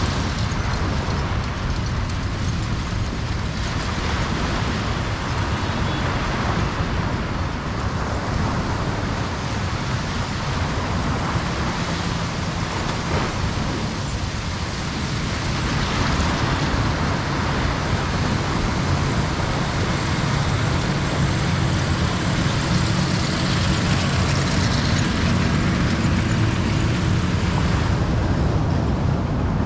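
Ocean surf washing onto a beach: a continuous rush of waves with a deep rumble underneath, swelling and easing as waves break.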